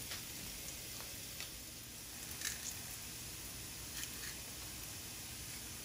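Chopped onions frying in oil in a pan, a faint steady sizzle with a few light clicks scattered through it.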